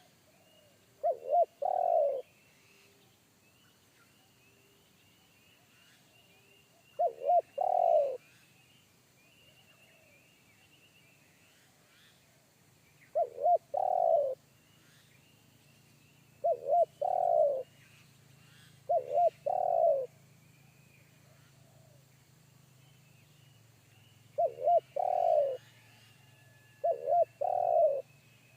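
Spotted dove (tekukur) cooing: seven deep calls spaced a few seconds apart, each two quick short notes followed by one longer note.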